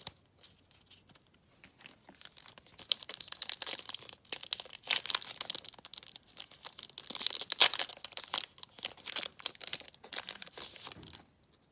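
Foil wrapper of a Yu-Gi-Oh! booster pack being crinkled and torn open: a run of crackling rustles with the loudest tearing about five and seven and a half seconds in.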